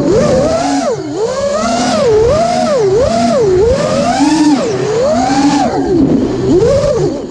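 5-inch FPV quadcopter's brushless motors and propellers whining, the pitch swooping up and down about once a second as the throttle is worked through freestyle moves. A hiss of rushing air runs underneath.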